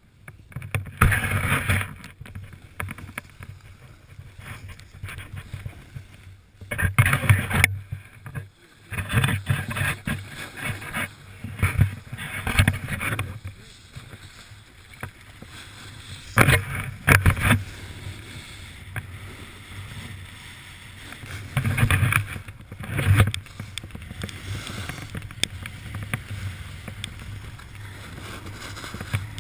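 Snowboard sliding and scraping over snow, coming in irregular loud surges over a low rumble.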